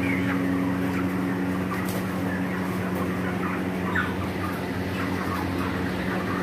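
Caged live chickens clucking and squawking in short scattered calls, over a steady low mechanical hum.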